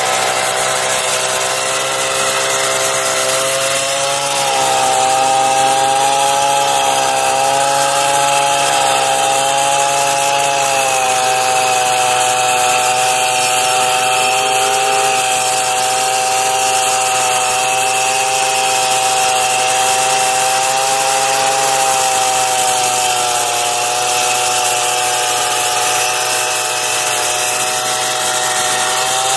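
Two-stroke chainsaw engine running at high revs, driving an angle-grinder attachment grinding metal. The engine note holds steady with slight wavers in pitch as the disc is loaded, over a continuous hissing grind.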